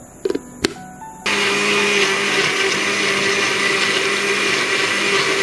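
Electric blender switched on about a second in and running steadily with a constant hum, blending leafy vegetables, fruit and a little water into green juice. Two short clicks come just before it starts.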